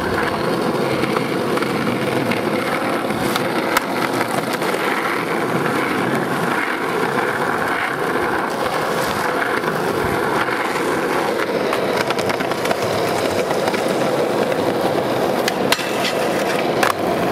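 Skateboard wheels rolling steadily on rough asphalt, with a few sharp clacks of the board. Near the end comes a pop and a sharp clack as the skater ollies up onto a thick, rusted metal rail.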